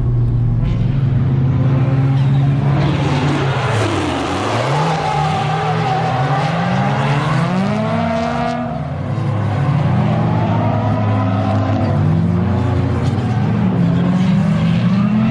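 Two drift cars' engines revving up and down in repeated rising and falling sweeps, their pitches crossing, with a hiss of tyre squeal through the middle of the stretch.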